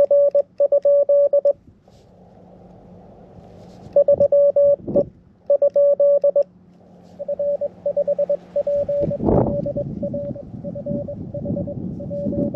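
Morse code on a ham radio: a tone near 600 Hz keyed in dots and dashes. Two loud, clean groups of the operator's own keyed sidetone come first, then from about halfway a weaker incoming CW signal over band static from the receiver, with a short static crash about 9 seconds in.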